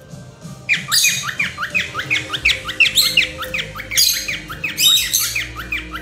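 Cockatiels chirping rapidly in a string of short, falling chirps several times a second, starting under a second in, with harsh, louder squawks breaking through at about one, three, four and five seconds. Quiet background music runs underneath.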